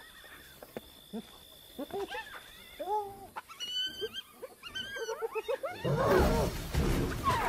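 Spotted hyenas squealing in short rising-and-falling cries as they squabble over a carcass. About six seconds in, a lion's loud, rough growl breaks in as he charges them to take the kill back, with more hyena squeals over it.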